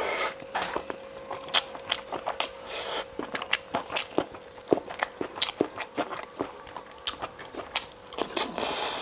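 Close-miked chewing and biting of food, irregular wet clicks and smacks of the mouth, over a faint steady hum.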